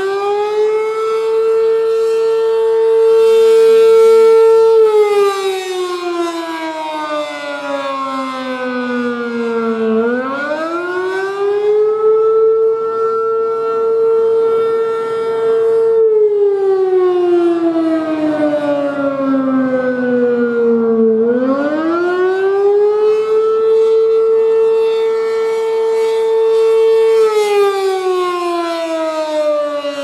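ACA P-10 single-tone electromechanical outdoor warning siren sounding the attack signal. Its pitch winds up quickly, holds high for about four seconds, then slowly falls, and the cycle repeats almost three times, about every eleven seconds.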